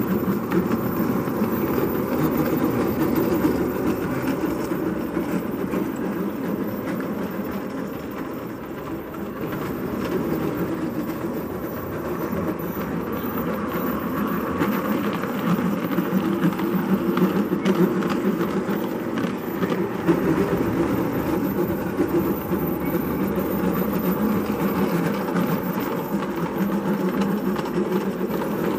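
A train running along the track: a steady running noise that dips a little about eight seconds in and then swells again.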